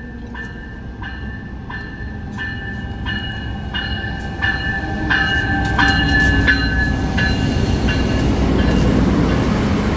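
VIA Rail Siemens Charger locomotive ringing its bell as it rolls into the station, about one and a half strikes a second, the strikes fading near the end. Under the bell, the rumble of the locomotive and its passenger coaches grows louder as the train passes close by.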